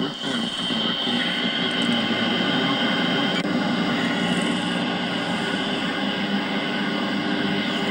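Yaesu FRG-8800 shortwave receiver playing band noise through its speaker: a steady hiss of static with faint steady whistling tones in it, the highest of which stops about three and a half seconds in.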